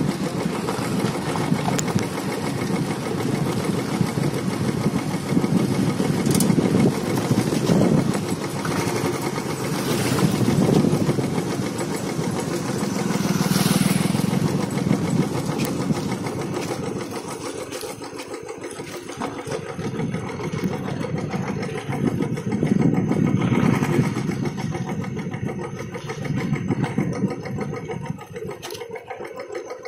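Royal Enfield single-cylinder motorcycle engine running while the bike is ridden over a rough dirt trail, its level swelling and easing with the throttle, quieter in the last couple of seconds.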